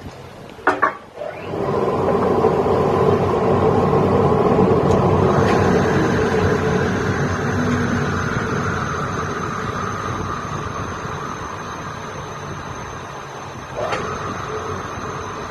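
Large circular saw cutting along a long wooden board: a couple of knocks as the board is set against the blade, then a loud cutting noise from about a second and a half in that slowly fades as the cut goes on. A thin high whine sets in about five seconds in, and there is another knock near the end.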